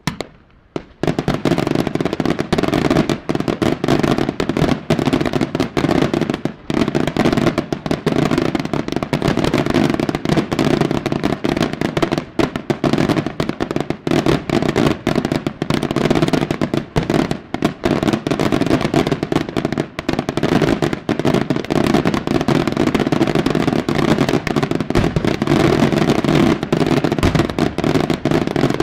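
Daytime aerial fireworks: a dense, unbroken barrage of rapid bangs and crackling that starts about a second in.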